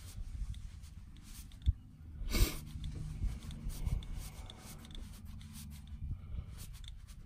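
Fingers bending and rubbing the metal rim of a JL Audio 15W0v3 subwoofer's mesh grille: faint scraping and small clicks, with a sharp tick near the start and a short louder rush of noise about two and a half seconds in.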